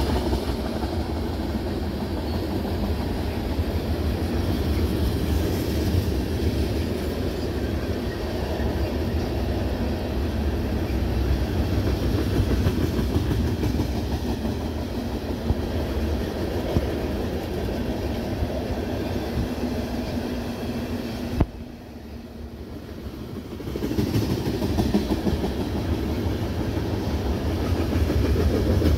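Tank cars of a freight train rolling past: a steady rumble with the clickety-clack of steel wheels over the rails. A sharp click about three-quarters of the way through, after which the sound drops away for about two seconds before returning.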